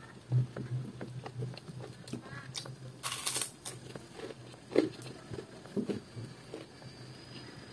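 Close-up mouth sounds of a person eating fried salted fish and rice by hand: wet chewing, lip-smacking and clicks, with a short noisy crunch-like burst about three seconds in and a couple of louder smacks near the end.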